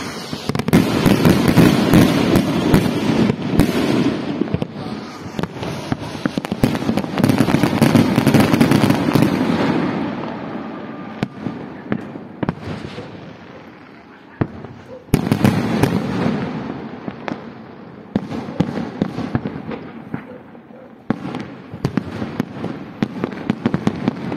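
Aerial fireworks display: shells bursting in rapid succession with crackling. Dense volleys of bangs come near the start, again a few seconds later, and once more about two-thirds of the way through, with scattered single reports and crackle between.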